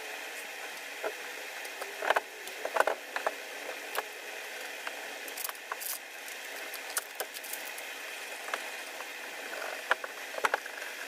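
Hand work on a wooden cricket bat on a workbench: a blade scraping the bat face and the bat and sticker being handled, heard as scattered short clicks, taps and scrapes. These are loudest about two to three seconds in and again near the end, over a steady background hiss.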